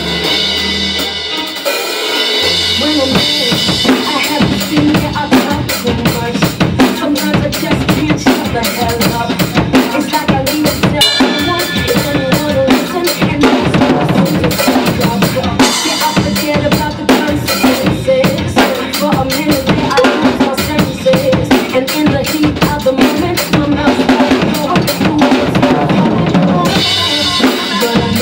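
Acoustic drum kit played hard in a busy, steady beat: bass drum, snare and cymbal strikes coming thick and fast throughout.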